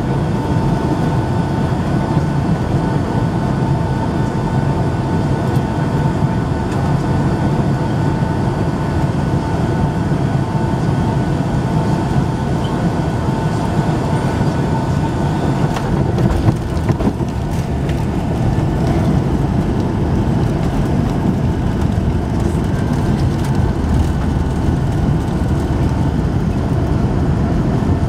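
Cabin noise of a Boeing 757-200 airliner landing: the steady noise of the engines and airflow with a thin, steady whine, a brief jolt about sixteen seconds in as the wheels touch down, then the rumble of the roll along the runway with the wing spoilers deployed.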